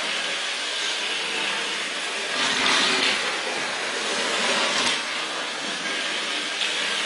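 Model train running around a track layout: a steady motor whirr and the rumble of wheels on the rails, louder for a moment about two and a half seconds in.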